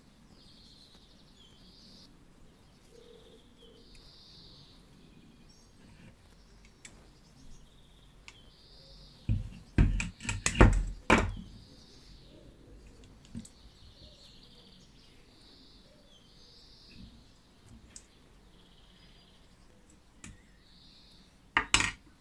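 Small metal compressor parts being handled and knocked against each other and the work mat: a quick cluster of sharp clicks and knocks about halfway through and a couple more near the end. Birds chirp faintly in the background throughout.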